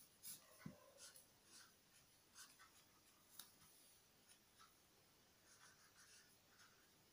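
Faint scratching of a ballpoint pen writing on paper, in short irregular strokes.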